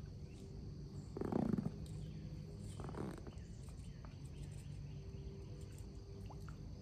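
Crickets chirping steadily in a high, continuous chorus. A brief louder low sound cuts across it about a second and a half in, and a weaker one about three seconds in.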